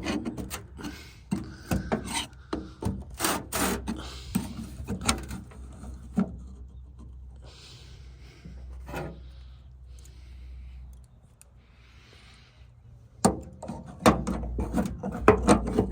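Metal hand tools (screwdrivers and wire cutters) clicking and scraping against a magnetic tool holder as they are set on it and slid into place. A run of sharp clicks and knocks, a quieter stretch of soft rubbing in the middle, then a fresh flurry of clicks near the end.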